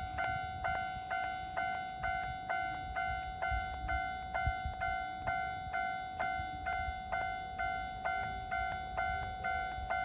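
Japanese level-crossing warning bell ringing, an even run of about two bell strikes a second, each one dying away before the next; it signals that the crossing is closed for an approaching train.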